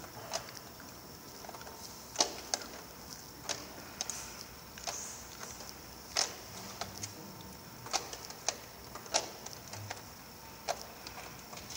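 Sharp hard-plastic clicks and taps as black plastic component trays are handled and worked at by hand, coming irregularly about once a second, over a steady high hiss.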